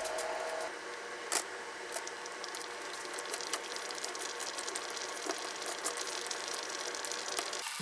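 Metal forks clicking and scraping against a plastic food container while shredding cooked chicken tenderloin, with many small irregular clicks and one sharper knock about a second and a half in.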